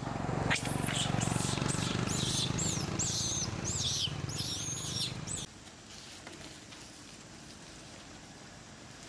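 A rapid series of short, high-pitched rising-and-falling animal calls, about two a second, over a low rumble. They cut off suddenly about five seconds in.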